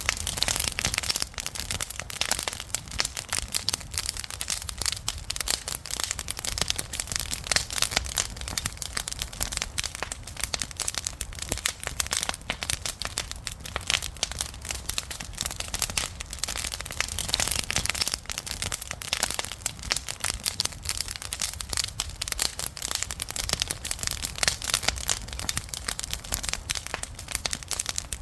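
Wood campfire crackling and popping continuously, dense small snaps over a low rumble of the flames.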